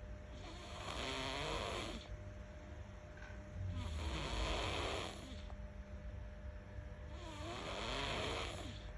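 A sleeping baby snoring: three slow, noisy breaths, each about a second and a half long, coming roughly every three and a half seconds.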